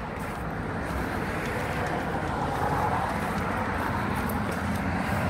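Steady rush of road traffic from a busy highway, swelling slightly about halfway through as vehicles pass.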